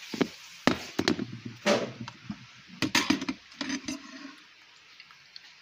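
Fork and spoon clinking and scraping in a bowl as instant noodles are stirred into rice, a run of short sharp clicks and wet bursts that thins out after about four seconds.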